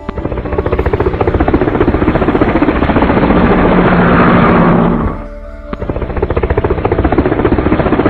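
Helicopter rotor blades chopping in a rapid, steady pulse over background music. The chopping drops away briefly about five seconds in, then resumes.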